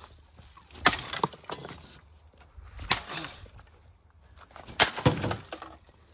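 Three loud smashing impacts about two seconds apart, each with a brief breaking, clattering tail, as thrown objects hit and break.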